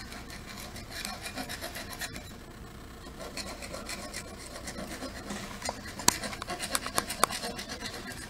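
Hand file rasping along the sharp edges of a small brass piece held in a bench vise, in short repeated strokes, deburring edges left sharp by the CNC machine. The strokes get sharper and louder in the last two seconds or so.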